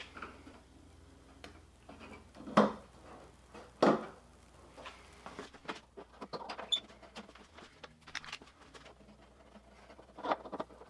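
Small plastic clicks, taps and rustles of hands fitting LED reverse-light bulbs into their sockets and twisting the sockets into the light housings on the inside of a car's trunk lid. Two louder knocks come about two and a half and four seconds in, followed by a run of faint quick ticks.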